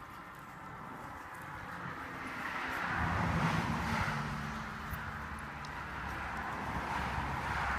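A car driving past: engine and tyre noise swell to a peak a few seconds in, then ease off, and another vehicle starts to rise near the end.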